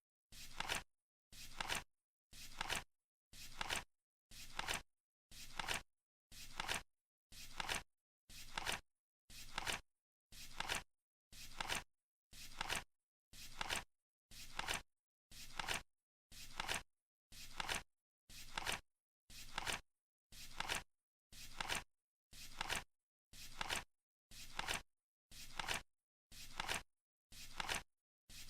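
Flip clock's number flaps turning once a second, marking each second of a countdown. Each flip is a short rustling swish that ends in a sharp snap.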